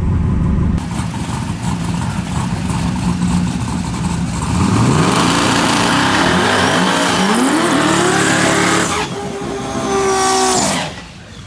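Drag race car engines at full throttle down the strip, the pitch climbing again and again through quick gear changes. The sound changes abruptly a couple of times and dips briefly near the end.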